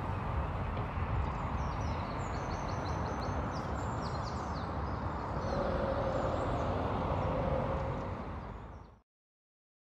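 Outdoor ambience of steady road traffic rumble with small birds chirping over it. Near the end a van passes on the road, its engine tone rising in level, before the sound fades out to silence about nine seconds in.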